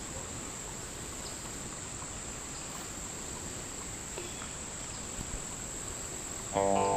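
Insects in a steady high-pitched chorus with faint background noise and a few small clicks. Guitar music comes in near the end.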